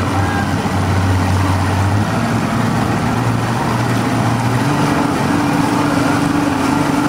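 Motorboat engine running while towing a rider on a tow rope, its pitch stepping up about two seconds in and again around five seconds as the boat speeds up.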